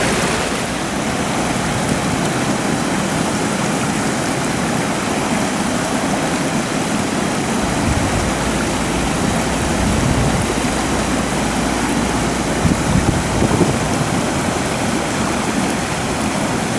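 Steady rush of water pouring over a weir below a dam, with a low rumble swelling in twice.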